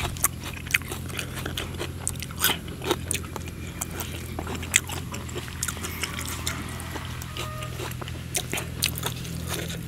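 A person chewing food close to the microphone, with many irregular wet smacks and clicks of the mouth.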